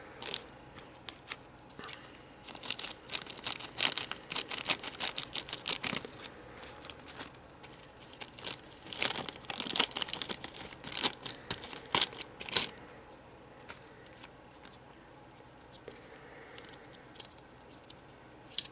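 Crinkly plastic packaging rustling and crackling as model kit parts are handled, in two busy spells, one a few seconds in and another around the middle, with a few faint ticks after.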